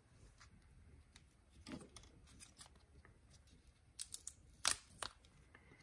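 Handling of an opened cordless-tool battery pack of five 18650 lithium cells: a few sharp clicks and taps of its plastic case and cells against the hands, the loudest a little over a second before the end.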